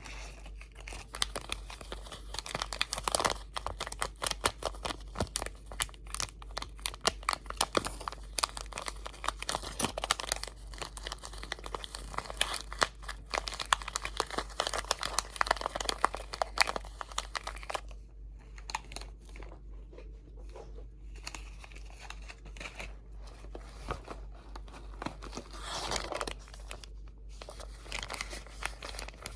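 Crinkly material crumpled and handled close to the microphone: dense crackles for the first half or so, sparser and quieter after about 18 seconds, busier again near the end. A steady low hum runs underneath.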